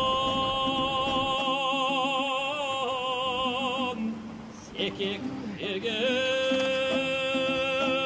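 Background music: a singer holds long high notes with a wide vibrato over an instrumental accompaniment. The first held note breaks off about four seconds in, a few shorter notes follow, and a second long note begins about two seconds later.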